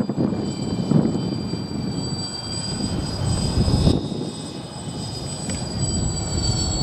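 Radio-controlled scale model B-24 Liberator flying past overhead, its motors giving a steady high whine that drops slightly in pitch near the end.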